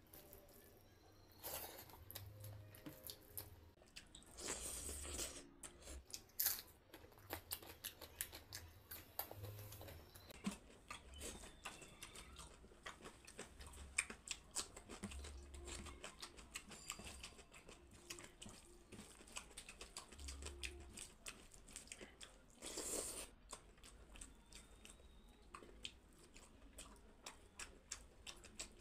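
Close-up eating sounds: fingers mixing rice with dal and mash on a steel plate, and chewing with many small wet mouth clicks. Two longer noisy stretches come about five seconds in and again near twenty-three seconds.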